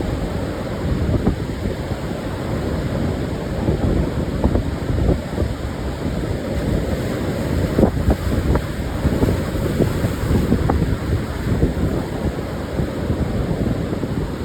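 Pacific surf washing onto a sandy beach, mixed with strong wind buffeting the microphone, which gives a steady low rumble with small crackles.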